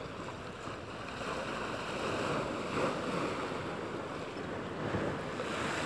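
Small sea waves washing up onto the shore, a steady rushing that swells in the middle and again near the end as waves come in.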